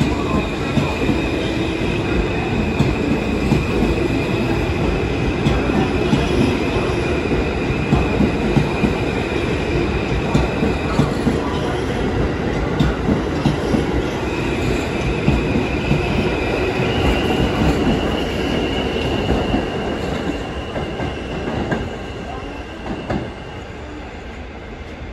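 NYC Subway R-160A train running through on the express track, wheels clattering over rail joints in a regular beat under a steady rumble. A high steady tone drops out about halfway and comes back a little higher. The sound fades over the last few seconds as the train pulls away.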